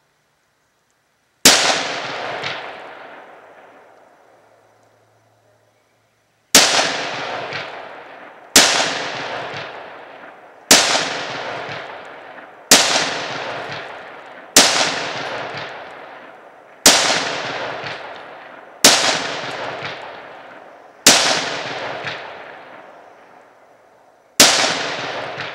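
Ten rifle shots. After the first, they come about every two seconds, each a sharp crack with a long echoing tail that fades out.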